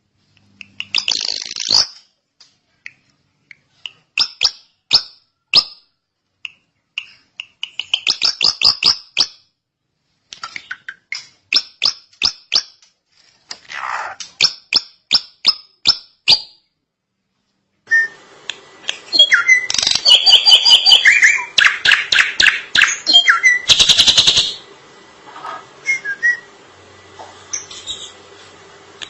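Drongo singing: quick runs of sharp, clicking notes and short whistled phrases, broken by brief pauses. Just past halfway a busier, louder stretch of song starts over a steady background hum.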